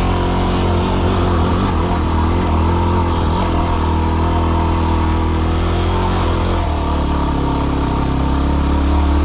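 Yamaha WR250R dual-sport motorcycle's single-cylinder engine pulling steadily up a steep loose-gravel climb, its note dropping a little about two-thirds of the way through.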